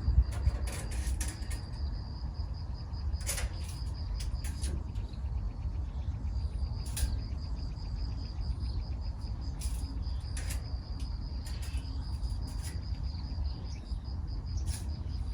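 A steady high-pitched insect trill, typical of crickets, runs on with brief breaks over a low rumble, while a series of sharp clicks and knocks from handling tools and materials sounds at irregular intervals.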